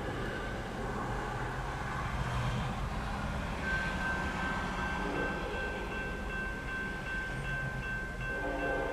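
Freight train's diesel locomotives running, led by an EMD SD70ACe sounding its horn: a horn blast ends at the start, a short blast comes about five seconds in, and another begins near the end. A high, steady ringing tone sets in about four seconds in.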